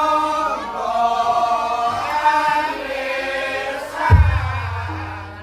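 Javanese gamelan music (a gending) with voices singing. A deep low stroke comes about four seconds in and keeps ringing.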